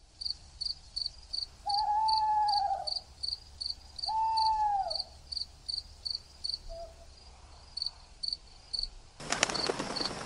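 Crickets chirping in a steady rhythm, about three chirps a second. Twice in the first half comes a drawn-out call that rises a little and falls away, and about nine seconds in there is a short burst of noise lasting about a second.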